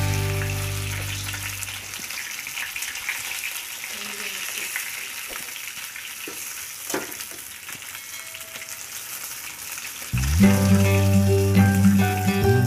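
Pieces of fish frying in hot oil in a wok, a steady sizzling crackle, with a few sharp clicks as they are turned with a wooden spatula. Background music fades out at the start and comes back in about ten seconds in.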